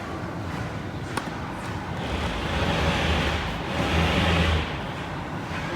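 Motor vehicle noise: a steady low hum with a hiss that swells twice, about two seconds in and again about four seconds in.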